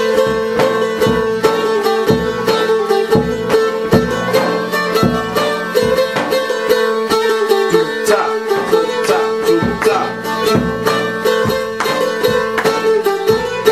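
Bulgarian tambura strummed with a pick over its ringing drone strings, about two strokes a second in an uneven dance rhythm. The rhythm is Treno, where the first and fourth beats are held longer.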